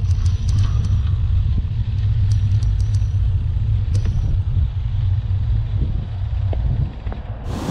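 Steady low rumble of wind and road noise on a camera moving along a road behind a road cyclist, with a few faint ticks early on. Near the end it switches abruptly to a louder, hissier wind noise.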